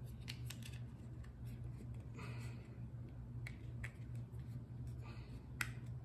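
Small plastic clicks and handling rattles as the cover is fitted back onto a Volkswagen flip key fob, with a sharper click near the end.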